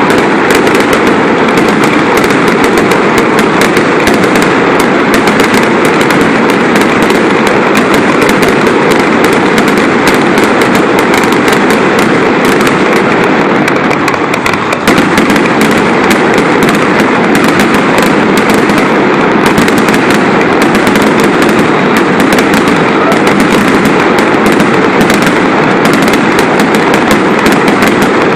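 Fireworks going off in a dense, unbroken barrage of crackling bursts, very loud throughout with a brief dip about halfway through.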